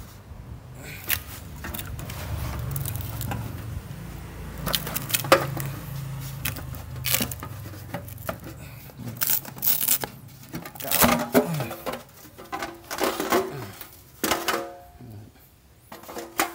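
Irregular knocks, clatter and scraping of the galvanized sheet-metal blower housing of a ceiling-concealed air conditioner as it is handled and taken apart during disassembly.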